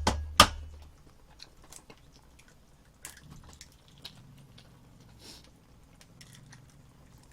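Close-miked chewing of eggs and rice, with two sharp clicks right at the start and scattered small wet mouth clicks after.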